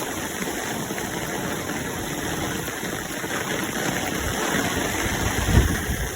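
Steady rain hiss. A low rumble swells and fades about five and a half seconds in, and is the loudest moment.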